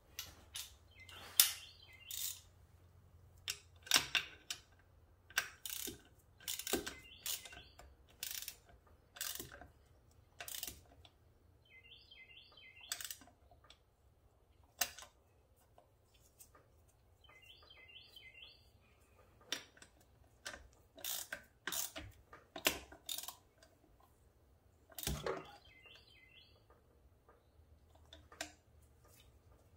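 Hand tools clicking and clinking on metal as a socket wrench is worked on the fuel rail bolts and fittings of an engine, in irregular sharp taps and knocks. Three short bursts of high chirping come in among them.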